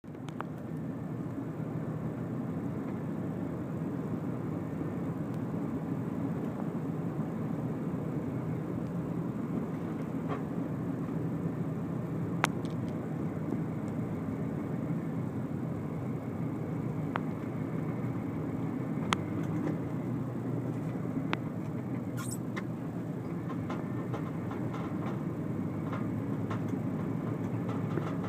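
Steady road and engine noise of a moving car heard from inside the cabin, tyres running on asphalt. A few sharp clicks come through now and then.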